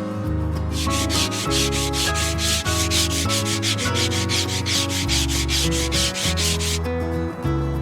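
Hand sanding: sandpaper worked in quick, even back-and-forth strokes for about six seconds, starting just under a second in and stopping suddenly near the end, over background music.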